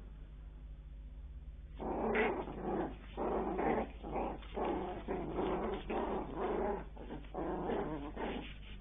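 Bichon Frise puppies growling: a run of short, rough growls starting about two seconds in and going on until near the end.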